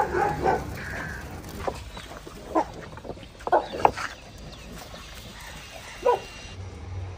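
A string of short, sharp animal calls, scattered irregularly, the loudest a quick group of three about three and a half seconds in. A low steady hum comes in near the end.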